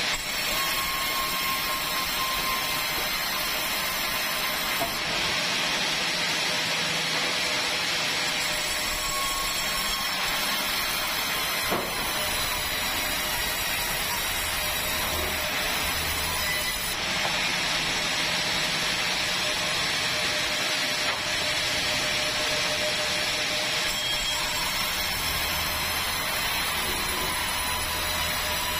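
Sawmill band saw running steadily as it rips a long timber beam, a continuous whine and cutting noise, with a single short knock about halfway through.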